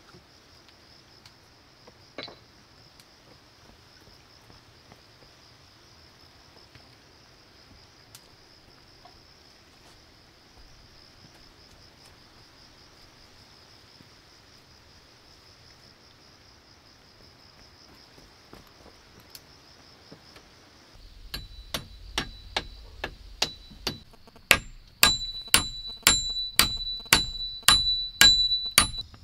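Insects buzzing steadily, then, about two-thirds of the way in, a run of hammer blows on wooden poles. The last ten or so are louder and carry a metallic ring.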